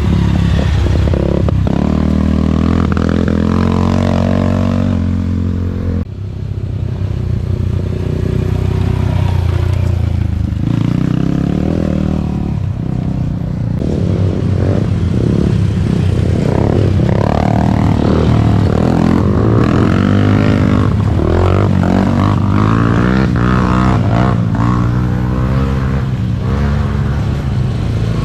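Small youth ATV engines running hard, revving up and down repeatedly as the quads accelerate and shift, with some rattling and scraping. The sound changes abruptly about six seconds in.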